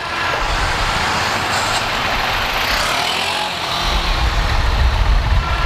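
Bajaj Dominar 400's single-cylinder engine running at low speed in traffic, under a steady rush of road and wind noise on the rider's microphone. The low rumble grows stronger about four seconds in.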